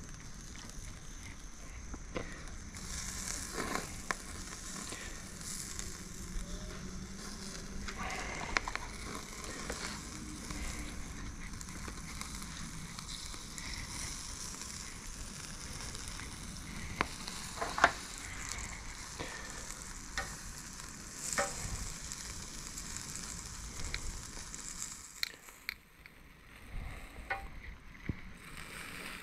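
Butter-basted softshell crabs sizzling steadily on a hot charcoal grill grate, with scattered clicks of metal tongs against the grate, the sharpest about two-thirds of the way through.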